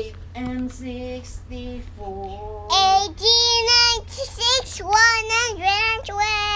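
A toddler's voice chanting the multiples of sixteen in a sing-song, with long drawn-out notes that slide up and down. A steady low hum runs underneath.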